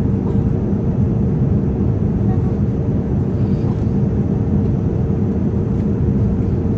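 Steady low roar of an airliner cabin, the engines and rushing air, with a faint steady hum above it.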